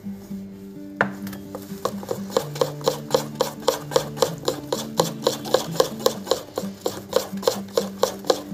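Metal spoon beating chocolate biscuit batter by hand in a ceramic bowl. It starts about a second in and settles into a steady rhythm of scraping strokes against the bowl, about four a second.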